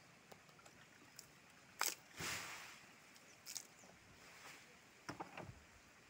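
Plastic parts of a switched-off Eureka Forbes WDX2 wet-and-dry vacuum cleaner being handled: its drum and motor head knock and click against each other, with a sharp click a little under two seconds in, a brief scrape just after it, and a few lighter clicks later on.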